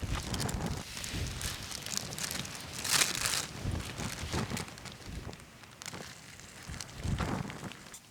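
Strong gusty wind with rain, the gusts buffeting the microphone in uneven surges; the strongest gust comes about three seconds in.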